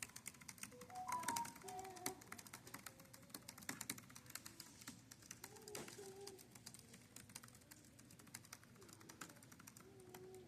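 Fast typing on a computer keyboard: a quick, uneven stream of faint key clicks.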